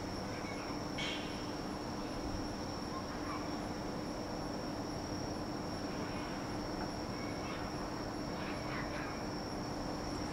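Evening insect chorus: crickets trilling steadily at a high pitch, over a steady low hum and faint town background noise. A few faint short chirps come through about a second in and again near the end.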